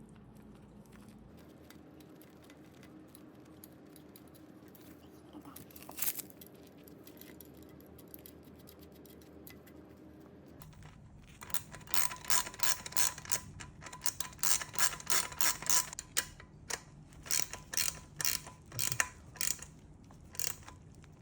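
Ratchet wrench clicking in quick, irregular runs of strokes while tightening the bolts that hold a kids' bike front wheel in the fork. These follow about ten seconds of faint room tone with a single click.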